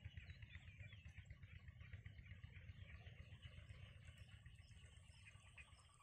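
Faint, distant small birds chirping over a low, fluttering rumble.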